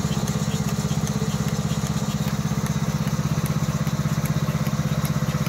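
Small petrol engine of a portable milking machine running steadily with a fast, even beat, driving the vacuum pump while the teat cups are on the cow.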